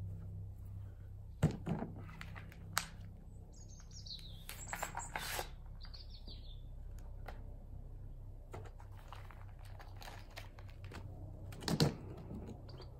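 Birds chirping in a garden, with a few sharp knocks and clicks as a plastic carrying case is set down on the lawn and handled; the loudest knocks come about a second and a half in and near the end, as the case is opened.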